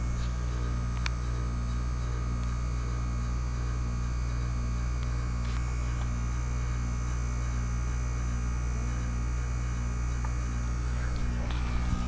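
2008 Goodman packaged heat pump running in defrost mode, giving a steady low hum. A faint click comes about a second in and another about five seconds in.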